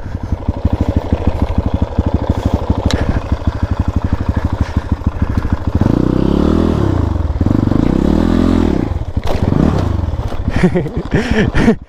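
Off-road motorcycle engine running at low revs with a fast, even firing beat, then revved up and back down twice from about six seconds in. The bike is labouring to climb a rough, difficult stretch of track.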